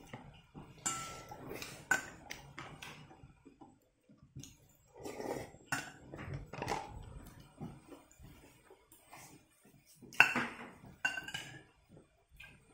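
A metal spoon clinking against a ceramic soup bowl several times, with short ringing clinks and the loudest one about ten seconds in. Softer eating sounds come between the clinks.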